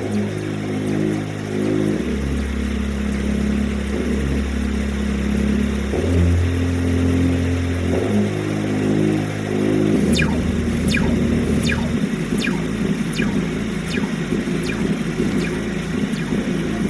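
Harsh noise/dark-ambient electronic music: loud, sustained low synth drones that step to a new pitch about every two seconds. About ten seconds in it gives way to a grittier noise rumble with repeated high falling sweeps.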